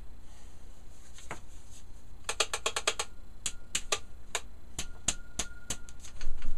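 Makita angle grinder being knocked and shaken by hand: sharp clicks and rattles, a quick run of them about two seconds in and then single clicks, with a short louder knock near the end.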